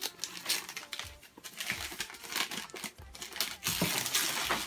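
Newspaper gift wrapping crinkling and tearing as it is pulled open by hand, in irregular rustling crackles that grow denser about three seconds in.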